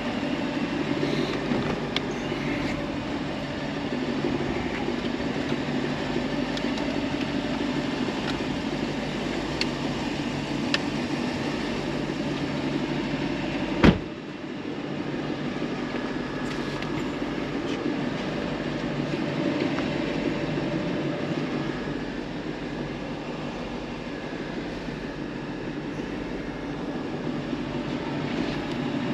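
Steady low hum of a parked Lexus LC500 running, with one sharp click about 14 seconds in.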